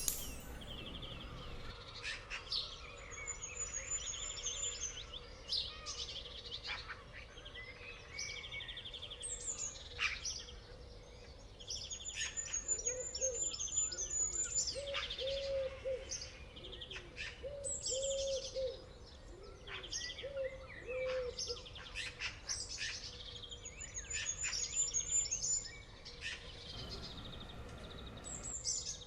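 Several birds chirping and calling: short sweeping chirps throughout, a rapid high trill that recurs every several seconds, and a run of low, rounded calls repeated in the middle.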